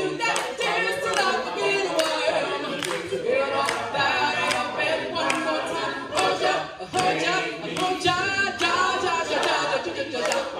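A mixed a cappella choir singing in close vocal harmony, with a steady beat of sharp percussive hits running under the voices.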